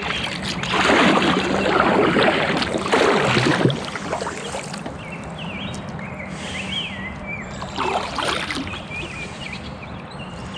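Kayak paddle splashing in river water: a long, loud stretch of splashing about a second in and a shorter one near the end, over steady running water.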